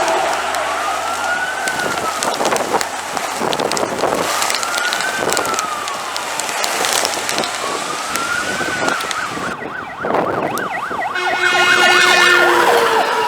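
Fire engine siren on an emergency run: a slow wail rising and falling about every three and a half seconds, switching to a fast yelp about two thirds of the way through, with a loud steady horn-like tone sounding over it near the end. Road and engine noise of the passing vehicle runs underneath.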